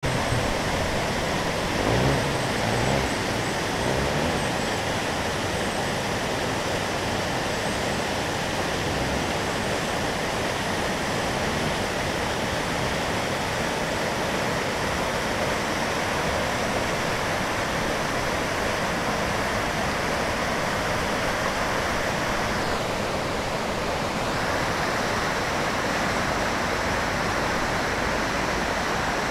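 Steady rush of fast-flowing stream water, an even, unbroken noise.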